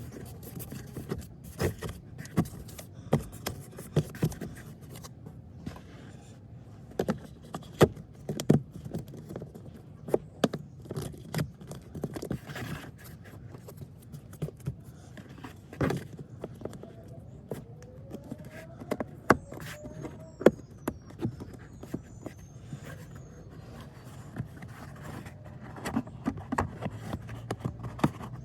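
Plastic parts of a car's cabin air filter housing being handled: irregular clicks, knocks and scraping, with a few short squeaky slides about two-thirds of the way through.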